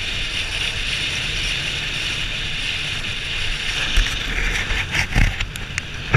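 Wind and road noise from a moving motorcycle, with the engine running underneath. There are several sharp knocks in the last two seconds.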